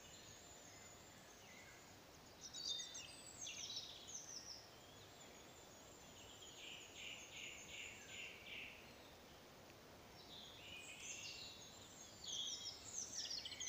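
Faint woodland birdsong in spring: several bursts of quick high chirps and warbles, with a run of evenly repeated notes a little past the middle.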